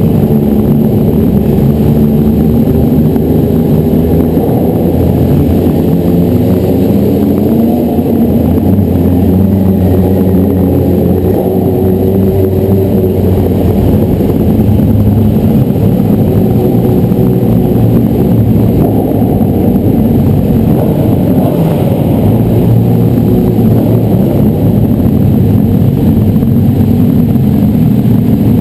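Sport motorcycle engines running at low speed, their pitch rising and falling with the throttle, in a concrete parking garage.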